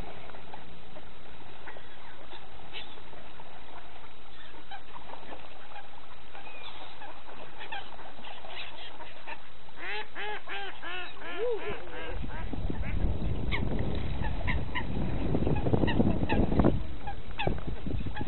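A flock of swans, ducks and coots on the water calling, with short calls scattered throughout and a quick run of honking calls about ten seconds in. From about twelve seconds a low rumble of a passing city bus builds and fades out a second before the end.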